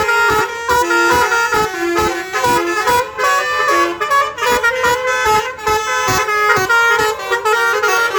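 Bus 'telolet' musical air horn playing a quick tune of short horn notes that change pitch several times a second, with a low knock under many of the notes.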